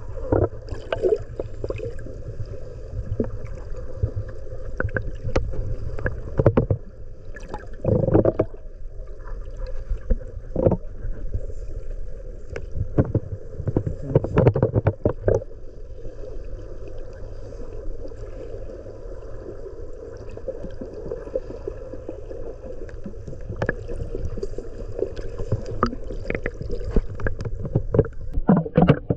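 A small boat out on the sea: water sloshing and splashing against the hull in irregular bursts over a steady low rumble.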